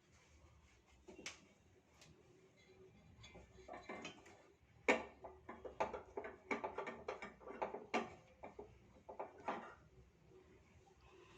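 Sharp clicks and taps of a tea strainer and spoon knocking against the cup while ginger tea is strained. A few light taps come first, then a busy run of quick taps from about four seconds in that stops about a second before the end.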